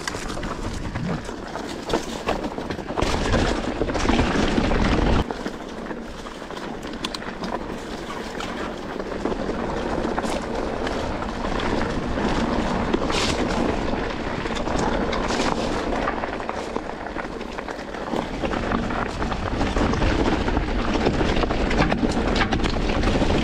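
Mountain bike riding down a rough dirt trail: tyres rolling over dirt and stones, with steady rattling and knocking from the bike over bumps. Wind rumbles on the microphone for the first few seconds and again from about two-thirds of the way in.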